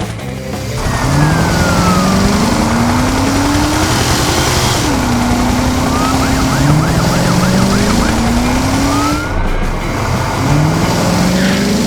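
Cartoon vehicle sound effects: engines revving in repeated rising sweeps, with a siren wailing, over background music.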